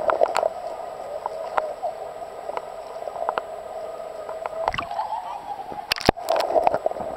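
River water heard through a camera held underwater: a muffled, steady hum of moving water with scattered sharp clicks and gurgles. Near the end there is a sharp click and the sound opens up as the camera comes partly up to the surface.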